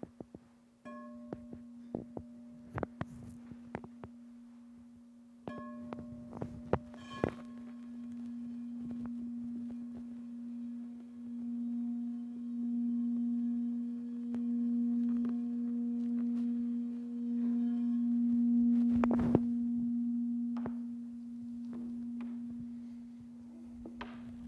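A sustained, low, bell-like ringing tone, struck twice near the start, then swelling and wavering in loudness through the middle, with scattered small clicks and knocks.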